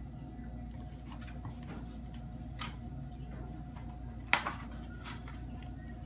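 Pages of a picture book being handled and turned: a sharp paper snap about four seconds in, followed by a brief rustle, over a steady low room hum.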